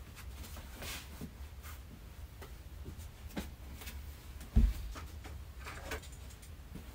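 Scattered light knocks and handling noises from a person moving about a small room and picking things up, over a low steady hum, with one dull thump about four and a half seconds in.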